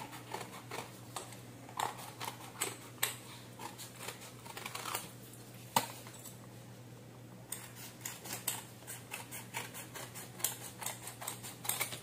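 Scissors snipping through folded paper: a run of short, irregular snips, with a pause of about a second and a half just past the middle.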